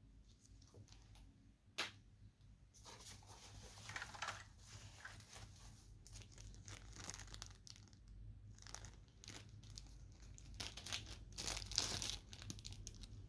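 Packaging being torn open and crinkled by hand, in repeated bursts of tearing and rustling, with a single sharp click about two seconds in.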